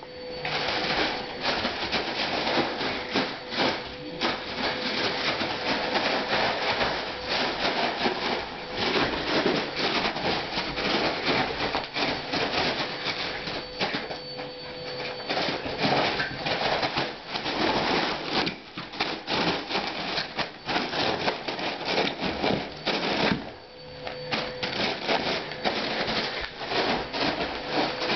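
Foil (mylar) balloon crinkling and crackling as a Yorkshire terrier bites, paws and shakes it, in a dense, continuous run of crackles with a short lull late on.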